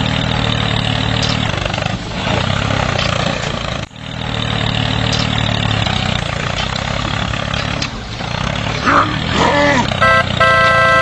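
Small tractor engine running steadily, with a brief break about four seconds in. Near the end, short gliding high sounds and a steady pitched tone come in.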